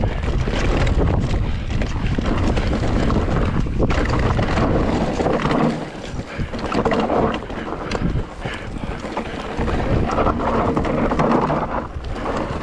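Mountain bike descending a trail at race speed: wind buffeting the microphone, heaviest in the first half, over tyres on dirt and the bike clattering over bumps.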